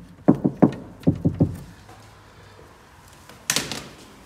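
Knuckles knocking on the bare inner sheet-metal panel of a 2019 Seat Leon FR door, at a spot already covered by a factory damping pad: two quick sets of three short knocks in the first second and a half. About three and a half seconds in, a brief rustling scrape.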